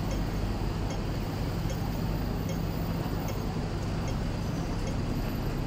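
City street ambience: the steady hum of passing traffic, with a faint regular ticking a little more than once a second.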